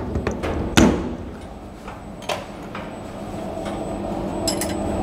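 A few sharp metal knocks and clunks from handling at a CNC milling machine while its vise is locked down; the loudest comes about a second in, with a short ring after it. A low steady hum builds in the second half.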